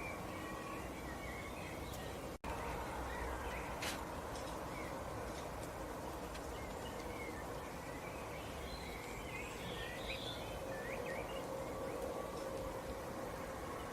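Small birds chirping faintly and sporadically over a steady outdoor background hiss, with a busier flurry of chirps about two-thirds of the way through. The sound cuts out for an instant about two and a half seconds in.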